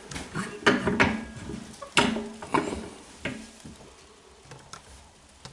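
A run of sharp clanks and knocks from hard objects being handled, about five in the first three seconds, the loudest about two seconds in, then dying down to a few faint ticks.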